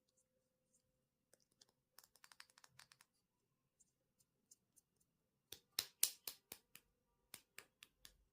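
A knife cutting through bar soap with crisp, crackling clicks. A few faint ticks come early, then a quick run of sharper clicks about five and a half seconds in, and a few lighter ticks near the end.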